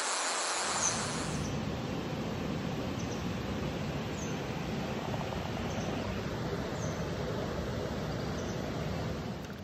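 Mountain stream water rushing steadily over rocks, with a few faint high chirps over it.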